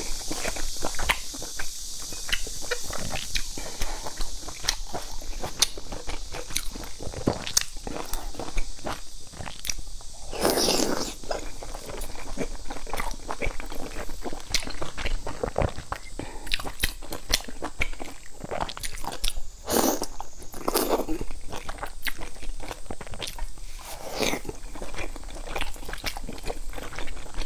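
Close-miked mouth sounds of a person eating steamed dumplings: wet chewing with many small clicks, and a few longer, louder mouth noises about ten and twenty seconds in.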